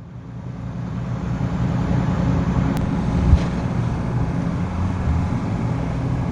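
A heavy diesel engine running steadily, swelling up over the first couple of seconds, with a single thud a little over three seconds in.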